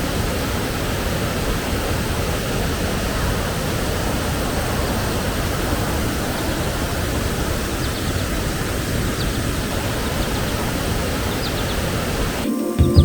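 Waterfall: falling water making a steady, even rushing noise, with a few faint high chirps in the second half. It cuts off just before the end.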